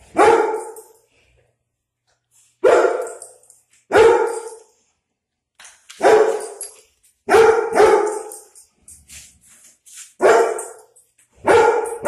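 German Shepherd giving a series of about eight loud single barks, spaced one to three seconds apart, with two in quick succession a little past the middle: territorial alert barking at a dog seen outside the window.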